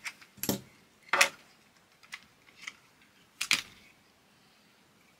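Sharp plastic clicks and knocks as the circuit board of a Fluke 12 multimeter is prised and lifted out of its plastic case. There are about six irregular clicks, the loudest just over a second in and a double knock about three and a half seconds in.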